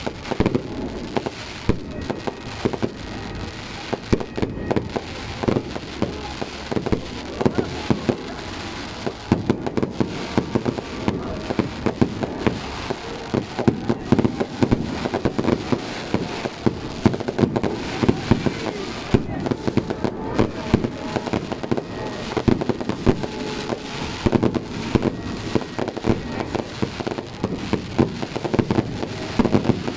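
Fireworks going off: a continuous run of rapid bangs and crackling pops, with voices from the watching crowd underneath.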